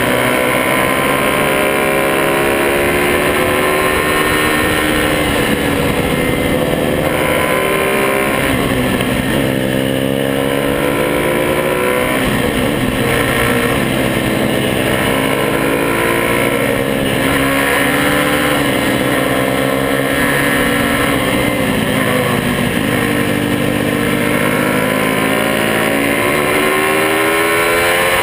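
Honda Monkey minibike engines running and being ridden, the engine note rising and falling over and over as the throttle is opened and closed.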